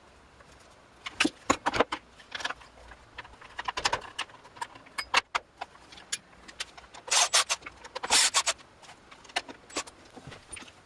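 Small metal parts and hand tools clinking and rattling as they are handled, an irregular series of sharp clicks and jingles. The densest clatter comes about seven to eight seconds in.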